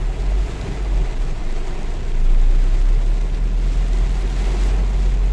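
Very heavy rain beating on a car's roof and windshield, heard from inside the cabin, over a steady low rumble; the rain gets a little louder about two seconds in.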